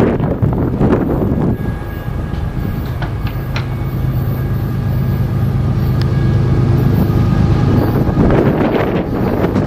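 A steady, low engine drone, most likely a diesel locomotive heard at a distance, holding for several seconds before fading near the end. Wind buffets the microphone at the start and again as the drone fades.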